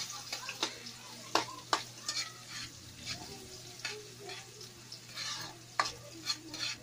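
Chopped garlic sizzling in oil in a metal wok while a spatula stirs it, knocking and scraping against the pan in irregular sharp clicks.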